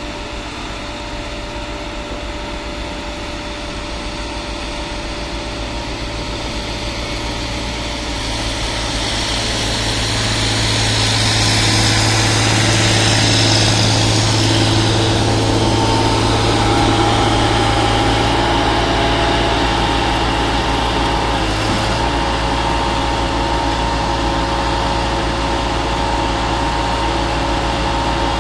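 Engine of a PQRS track-relaying portal gantry machine running steadily, a continuous mechanical drone that grows louder about ten seconds in and then holds.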